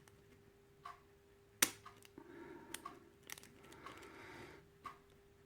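A hook pick and tension wrench clicking and scraping inside a Kwikset pin-tumbler lock as it is picked: about five sharp separate clicks, the loudest about a second and a half in.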